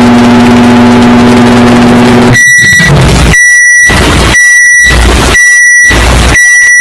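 A microwave oven's steady running hum, which cuts off after about two seconds. Then a rhythmic run of loud microwave beeps, about one a second, each alternating with a burst of harsh noise, edited together like a beat.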